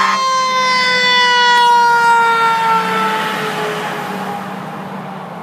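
Fire engine siren winding down, its pitch sliding slowly lower as it fades over about four seconds, right after a short multi-tone horn blast that cuts off at the start.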